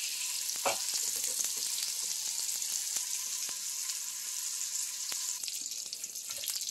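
Meatballs sizzling steadily in their own fat on the ribbed plate of an electric contact grill, with flatbreads laid and pressed on top of them to draw off the fat.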